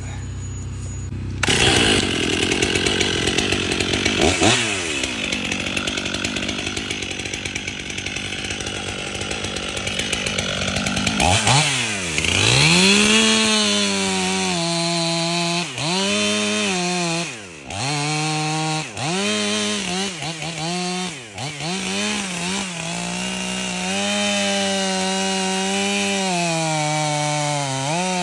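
Stihl MS 500i two-stroke chainsaw running at high revs through the wood of a maple. For the first part there is a rough, noisy cutting sound. From about eleven seconds in, a clear high engine note takes over, dipping in pitch and climbing back again and again as the revs fall and recover.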